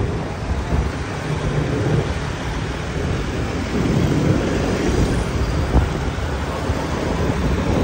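Wind rushing over the microphone on top of the steady road and engine noise of a moving vehicle in traffic.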